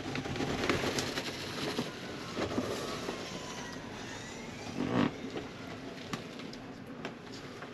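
Pop-up roof of a camper cabin being pushed open by hand, its new canvas side walls rustling as they unfold, with a few knocks, the loudest about five seconds in.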